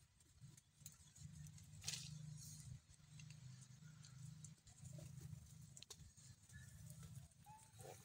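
Near silence: a faint low rumble with a couple of soft clicks or taps.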